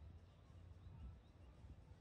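Near silence: faint outdoor background with a low steady rumble.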